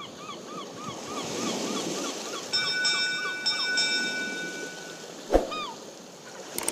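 Logo-sting sound effects: waves washing on a shore under a run of quick, evenly repeated chirps. A bright chime rings out about two and a half seconds in, a sharp swooping pop comes just past five seconds, and a click lands at the very end.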